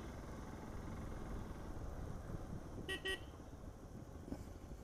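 Steady low rumble of wind and road noise from a motorcycle ride, with a vehicle horn giving two short toots in quick succession about three seconds in.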